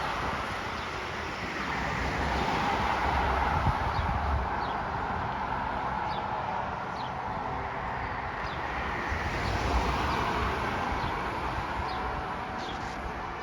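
Outdoor traffic ambience: a steady rush of passing vehicles that swells twice, with short high bird chirps repeating over it.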